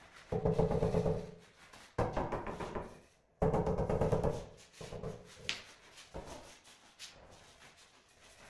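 Three rough scrapes of about a second each while a marble edge strip is set in mortar, stone and trowel grating on the fixing, followed by quieter scattered handling knocks.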